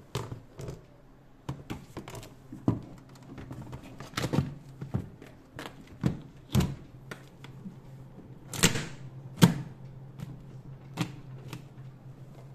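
Irregular sharp clicks and knocks of hard objects being handled, the two loudest about a second apart past the middle, over a steady low hum.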